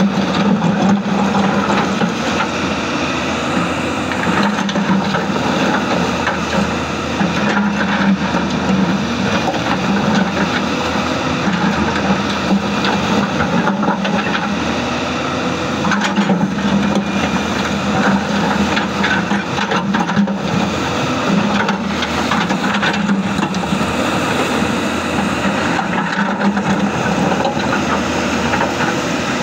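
Hyundai 220-9S crawler excavator's diesel engine running under hydraulic load, its note swelling and easing every few seconds as the bucket digs. Rocks crunch and scrape in the bucket as it works through the stony riverbed.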